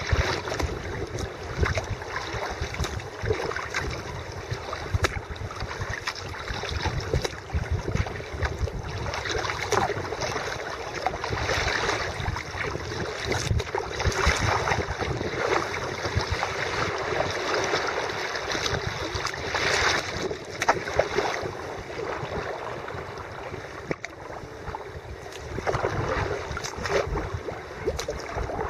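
Kayak being paddled through floodwater: paddle blades splashing irregularly in the water over a steady wash of moving water against the boat.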